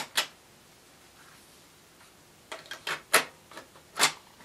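Mechanical clicks of a SANYO M9994 boombox's cassette deck. A top key is pressed with two sharp clicks at the start. About two and a half seconds in, a run of plastic clicks and knocks follows as a cassette is handled in the front door, and the door is snapped shut near the end.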